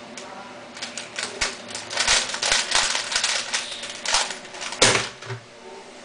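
Plastic 3x3 Rubik's cube being turned fast by hand: a quick run of clicking, clacking layer turns, ending with one louder knock about five seconds in.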